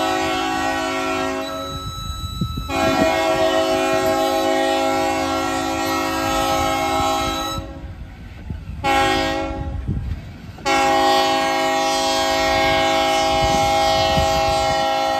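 Train air horn, several notes sounding together, blowing the grade-crossing signal as the train nears a road crossing. The end of a long blast, then a long blast, a short one about nine seconds in, and a final long blast that stops at the end: long, long, short, long.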